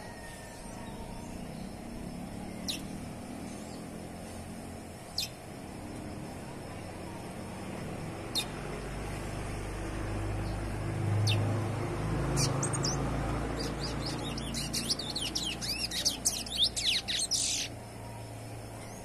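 Young chestnut-bellied seed finch (curió) giving single sharp high notes every few seconds, then about three seconds of rapid, twittering song near the end. A low rumble builds underneath from about the middle.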